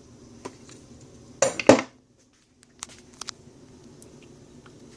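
Metal hand tools clinking and clattering as they are handled, with a loud clatter about one and a half seconds in and a few light clicks about a second later.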